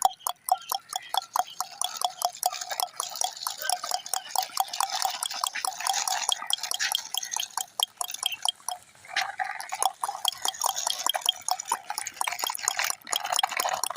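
Toy horse cart pushed along by hand, its wheels and parts clicking and rattling in a fast, uneven clatter.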